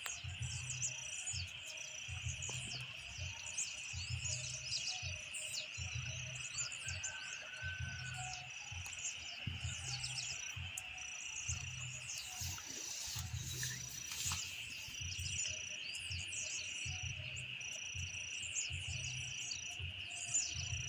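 Night chorus of insects and frogs. A steady high insect drone runs under a high beeping call that repeats about once a second, with many short chirps and low pulsing calls, also about once a second.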